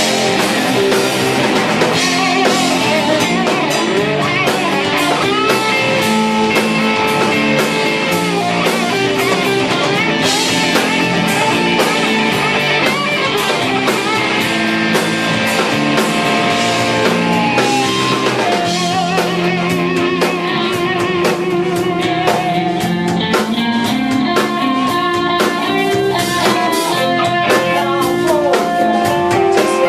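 Punk rock band playing live: guitar over a drum kit, loud and continuous.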